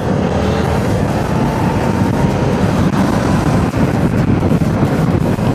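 Yamaha MT-07's 689 cc crossplane parallel-twin engine running steadily on the move, mixed with wind rushing over the camera microphone.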